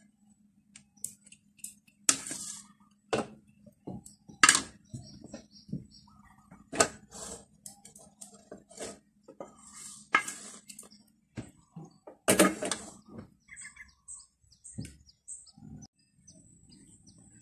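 Wooden spatula scraping and knocking against a nonstick wok as fried noodles are scooped out, in short irregular strokes with quiet gaps between them.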